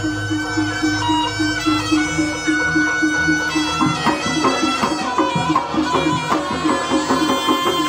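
Jaranan gamelan ensemble playing live: a slompret (Javanese shawm) carries the melody over a fast, steady run of repeated pitched notes and drums.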